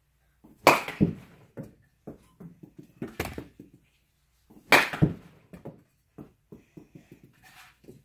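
Youth Louisville Slugger 718 baseball bat striking baseballs off the swing into a practice net: a sharp crack of contact about every two to three seconds, four in all. Each crack is followed by lighter knocks and ticks as the ball lands and bounces around the cage.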